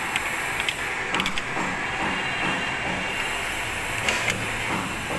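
Europa Parma rim lock being worked by its inside knob to test the newly fitted lock: a series of sharp mechanical clicks and clunks from the lock mechanism, clustered about a second in and again near four seconds.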